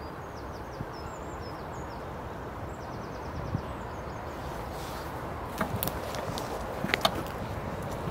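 Steady outdoor wind noise with faint, high-pitched bird chirps in the first three seconds. A few sharp clicks and rustles come near the end, the loudest sounds here.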